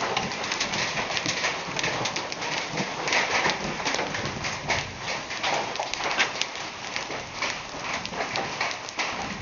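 Heavy rain with large hailstones falling: many hard hail impacts clattering irregularly over a steady hiss of rain.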